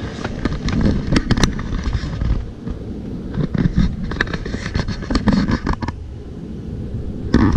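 Handling noise from a phone camera being moved around inside a pickup truck cab: rustling with many sharp clicks and knocks over a low rumble, loudest near the end.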